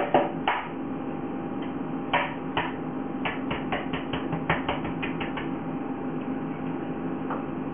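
Eggs being tapped and cracked open: a scattered series of light knocks and clicks, thickest in the middle, over a faint steady hum.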